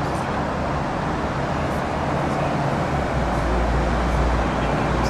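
Steady outdoor noise of road traffic, with a low rumble that swells about three seconds in.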